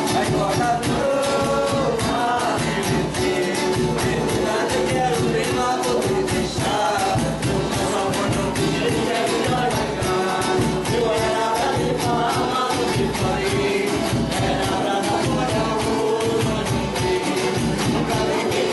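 Group of voices singing over a fast, steady beat of tambourine-like hand percussion.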